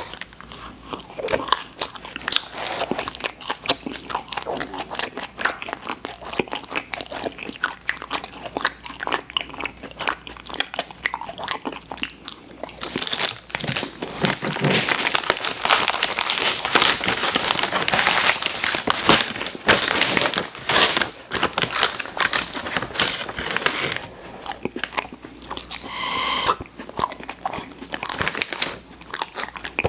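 Close-miked eating of sweets: biting and wet, sticky chewing with crackly mouth sounds, which grow louder and denser in the middle of the stretch.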